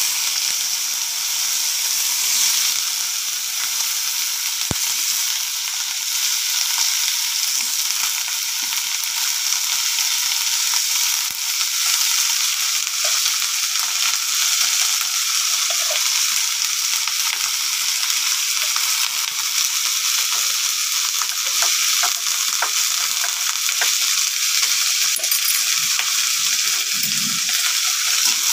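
Crabs frying in a hot wok: a steady high sizzle with scattered small crackles.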